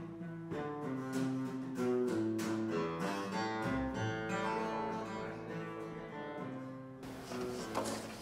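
Plucked acoustic guitar music, a picked run of notes that cuts off suddenly about seven seconds in, giving way to room noise and a single knock.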